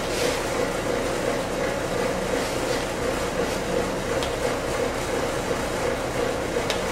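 A steady mechanical hum with an even rushing hiss, with a few faint light ticks.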